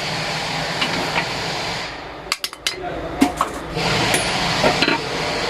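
Sharp metallic clicks and knocks of hand tools on an alternator being taken apart, a cluster of them about two and a half seconds in, over a steady mechanical noise that drops out briefly just before them.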